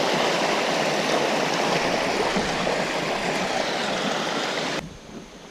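Creek water rushing over rocks, a steady rush that cuts off abruptly near the end.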